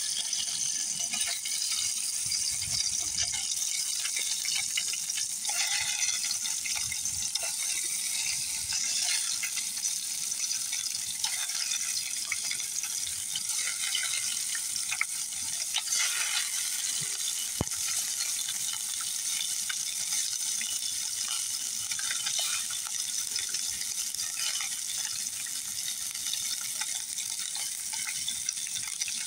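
Walleye fillets frying in hot oil in an aluminium camp pan: a steady sizzle with fine crackling as more fillets are laid in.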